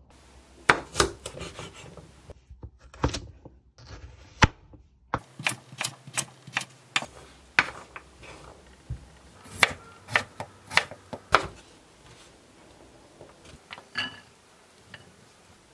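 Kitchen knife chopping a carrot on a wooden cutting board: irregular sharp knocks of the blade striking the board, thinning out to a few softer knocks near the end.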